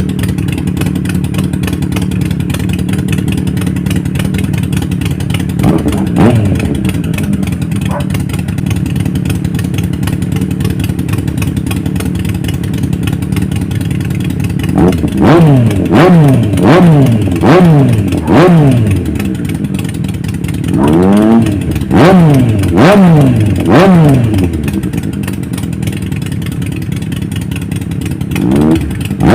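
Two motorcycles idling together: a Triumph Street Triple 900's three-cylinder engine and a Harley-Davidson Sportster 883's V-twin. There is one throttle blip about six seconds in. From about halfway there are two runs of quick throttle blips, each rising and falling in pitch, and another starts near the end.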